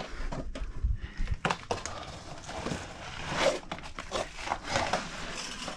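Irregular scrapes, crunches and knocks of someone scrambling over rock, with a low rumble in the first second or so.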